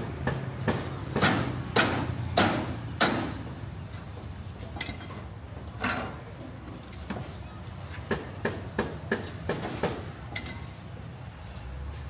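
A knife chopping spit-roasted meat on a wooden chopping block: a string of sharp knocks, the four loudest about half a second apart in the first few seconds, then lighter, quicker taps later on.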